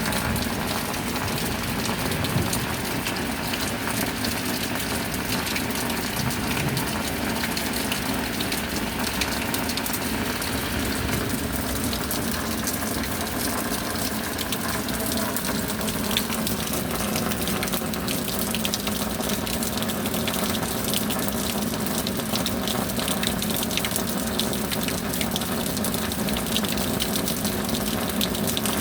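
Rain falling steadily: an even rushing hiss that holds the same level throughout.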